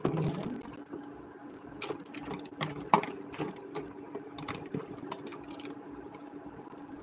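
Cooked mussel shells clacking against each other and the pan as they are stirred and handled in the boiling soup, in irregular clicks with a sharper clack about three seconds in, over a steady low hum.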